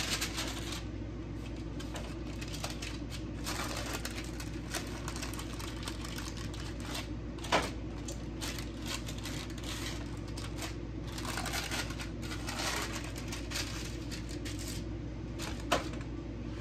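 Parchment paper rustling and crinkling in bursts as gloved hands fold soft melted HDPE plastic and pull it off the paper on a metal baking sheet. There are two sharp knocks, about seven seconds in and near the end, over a steady low hum.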